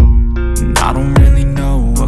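Loud hip-hop track cutting in abruptly, with deep bass and heavy kick-drum hits at the start and about a second in.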